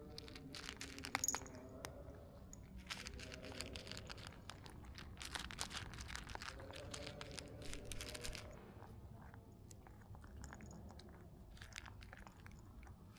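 A cat chewing and crunching food: dense runs of small crunches, thickest in the middle and thinning out over the last few seconds.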